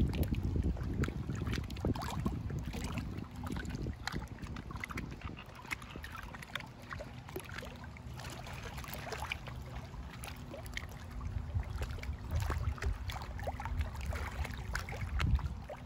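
Small waves lapping and splashing against a rocky lakeshore, an irregular patter of little splashes, with wind rumbling on the microphone, strongest at the start.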